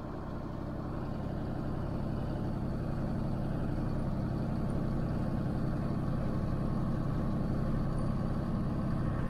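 Farm tractor engine running steadily, a low drone heard from inside the tractor's cab.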